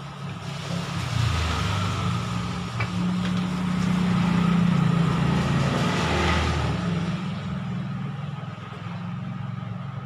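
A motor vehicle passing close by: its engine note grows louder over the first few seconds, peaks mid-way, then slowly fades.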